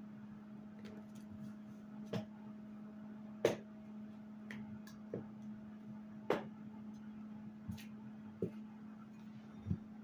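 Scattered knocks and clacks of kitchen items being picked up and set down on a counter while it is cleared, about eight in all, the loudest about a third of the way in and past the middle. Underneath is a steady low hum from the air fryer running.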